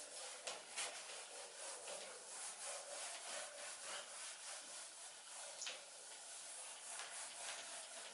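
Whiteboard duster rubbing back and forth across a whiteboard, wiping off marker writing: a run of dry scrubbing strokes.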